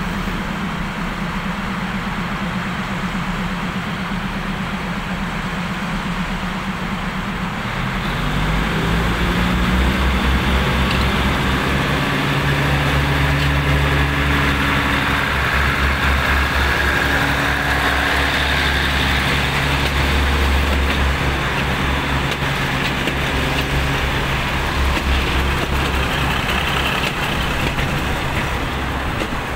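Diesel railcar train idling, then its underfloor diesel engines throttle up about eight seconds in as it pulls away. The engine note rises in pitch and settles into a loud, steady drone as the cars roll past.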